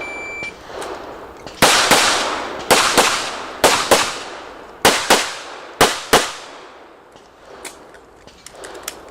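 Shot-timer start beep, one short high tone, then a handgun fired in quick pairs of shots, about five pairs over some five seconds, each shot sharp with a reverberant tail. A few faint ticks follow near the end.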